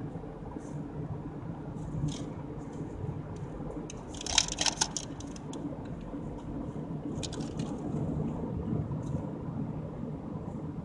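Car driving slowly, heard from inside: a steady low engine and road rumble, with a brief cluster of clicks and rattles about four seconds in and a few more about seven seconds in.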